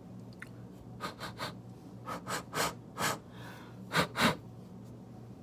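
A person's breath: a run of about ten short, breathy puffs over about three seconds, the last two the loudest.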